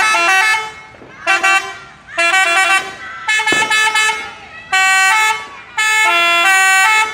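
Telolet horn, a multi-tone musical horn, playing a tune in six short blasts, each a run of stepped notes; the last blast is the longest, over a second.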